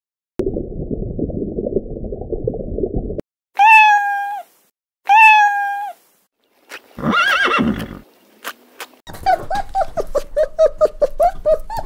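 A string of separate animal calls: a low rough rumble for about three seconds, then two drawn-out pitched calls of about a second each, a further call, and near the end a long quavering call of quick repeated notes.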